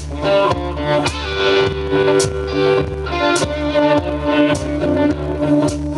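Acoustic guitar played over a backing track with a bass line and a steady beat, a sharp hit about once a second; an instrumental gap between sung lines.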